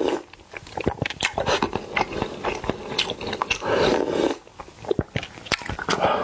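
Close-miked mukbang eating: wet chewing and lip smacks through a mouthful of Korean bibimbap, with a longer slurping noise as a spoonful goes into the mouth at the start and again about four seconds in.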